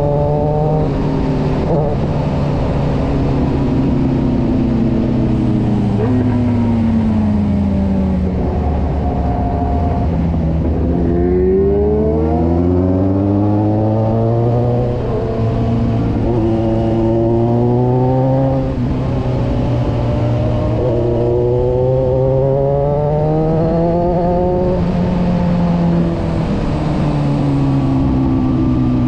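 Kawasaki motorcycle engine heard from the saddle while riding, its pitch climbing as it accelerates, dropping back at gear changes and easing off into bends, several times over, with wind rush underneath.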